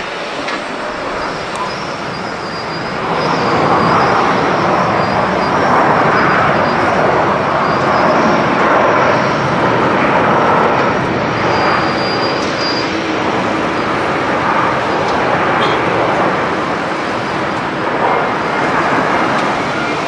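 Jet engines of a twin-engine wide-body airliner running loud during the landing rollout, stepping up in loudness about three seconds in and holding there.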